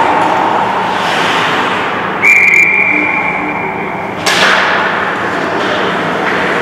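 Ice hockey play echoing in an indoor rink, skates and sticks on the ice. About two seconds in comes a single steady high whistle blast lasting about two seconds, and as it stops a sharp crack of an impact rings out.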